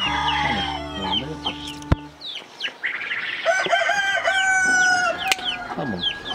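Poultry in a coop: chickens clucking with many short high chirps, and a rooster crowing one long call from about three and a half seconds in. A low steady hum stops about two seconds in, just after a single sharp click.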